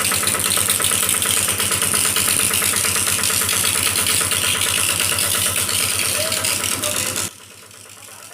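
Heavy diesel engine of road-paving machinery running steadily, with a fast, even pulse and a loud hiss over it. Near the end it cuts off suddenly, leaving a much quieter engine hum.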